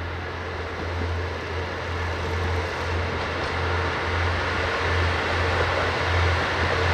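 Diesel train approaching on the line: a low, slightly pulsing engine drone with a rushing running noise that grows steadily louder.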